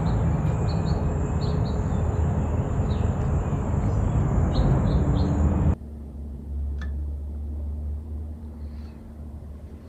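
Outdoor ambience: a steady rush of noise with small birds chirping briefly several times. About six seconds in it cuts abruptly to a quieter indoor room tone, a steady low hum with one faint click.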